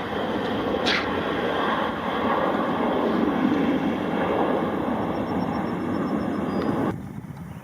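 Aircraft engines, a loud, steady roar that cuts off abruptly about seven seconds in.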